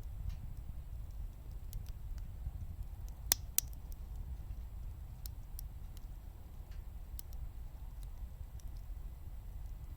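Firewood burning in a wood gas stove, crackling with scattered sharp pops, two louder pops in quick succession about a third of the way in, over a low rumble.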